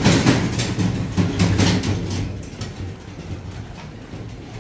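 Small three-wheeled motor tricycle's engine running as it rides past close by, loudest in the first second or two and fading over the rest.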